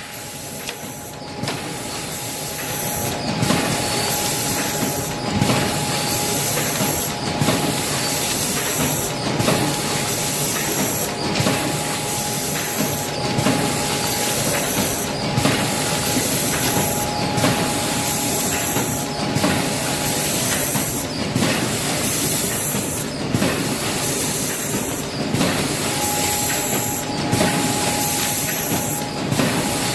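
Automatic chili-powder packaging machine running, cycling with a regular beat about once a second over a steady hiss and a thin steady whine.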